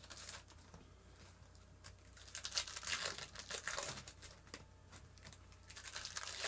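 Baseball card pack wrapper crinkling and tearing as it is opened by hand, in short bursts of rustling that are busiest a little past the middle and again near the end.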